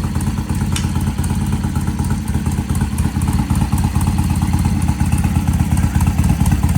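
Vintage British motorcycle engine idling steadily and evenly, running nicely now that its clogged Mikuni pilot jet has been cleaned. A single click about a second in.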